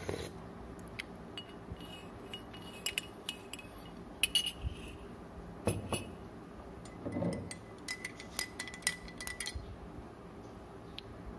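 Metal teaspoons clinking against a glass coffee mug and a ceramic mug: scattered light chinks with a short ring, then a quick run of clinks later on.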